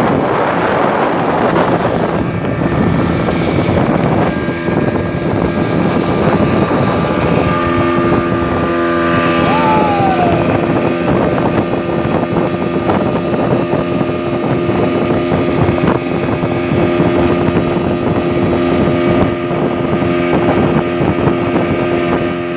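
Speedboat engine running at speed, with wind on the microphone and water rushing off the hull. About eight seconds in, the engine settles into a steady tone.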